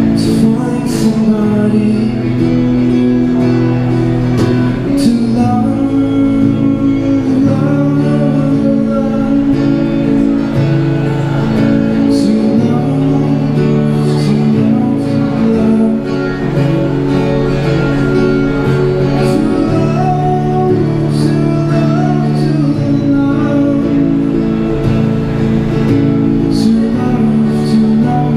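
Acoustic guitar music amplified through a small Roland Cube Street EX street amp: layered strummed chords over a low sustained part, with a sharp percussive hit recurring every second or two.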